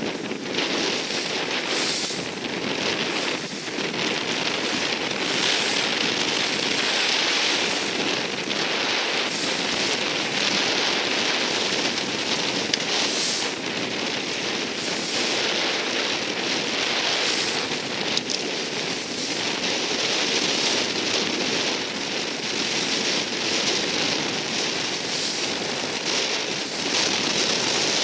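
Wind buffeting the microphone over rushing, splashing water on the open sea, a steady noise broken by many short crackles of spray.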